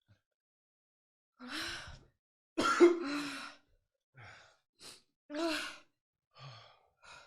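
Heavy sighs and sharp breaths, about seven in a row, the loudest with a voiced edge about three seconds in. This is someone panting and blowing out against the burn of a very hot spicy challenge food.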